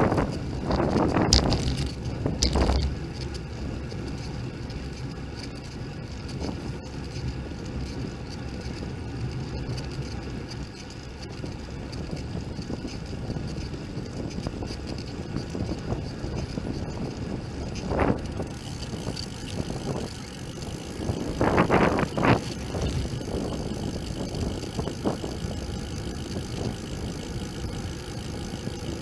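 Bicycle riding, heard from a camera mounted on the bike: a steady rumble of wind and road noise, with sharp rattling knocks in the first few seconds, one about 18 seconds in and a cluster around 22 seconds.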